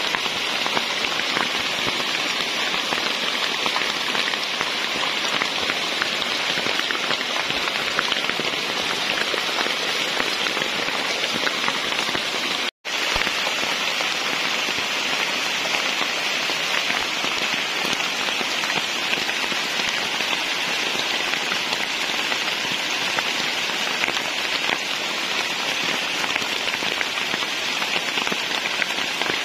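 Heavy rain falling steadily on forest leaves, a constant even hiss. It cuts out completely for a split second about halfway through.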